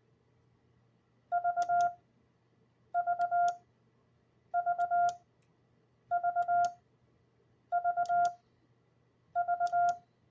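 Morse code sidetone keyed from a Vibroplex iambic paddle, sending the letter V (dit-dit-dit-dah) six times, about once every second and a half. It is a steady beeping tone with a faint click at the start of each element.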